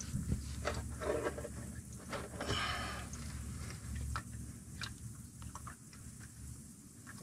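Scattered light clicks, knocks and rustles of a hand working around the oil-filter mount under a car, with oil dripping into a drain pan after the old filter has come off.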